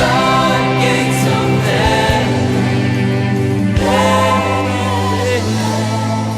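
Gospel worship song: a choir and congregation singing long held notes with accompanying band, the bass notes shifting a couple of times.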